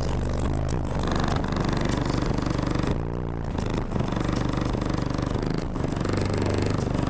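Loud bass-heavy music pounding from a car audio system with four Digital Designs 515 15-inch subwoofers on a DD M4 monoblock amplifier, heard from just outside the vehicle.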